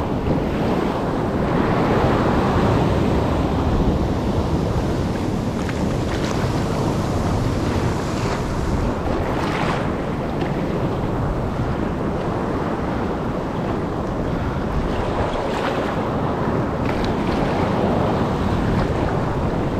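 Ocean surf surging and washing over shore rocks, a steady rushing noise, with wind buffeting the microphone.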